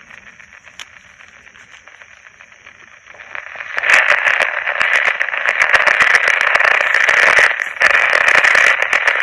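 A 1962 Emerson 707 transistor radio's small speaker hissing with AM static and crackling clicks. The static is faint at first and swells loud about three and a half seconds in. The owner blames the noise on interference from a cell phone.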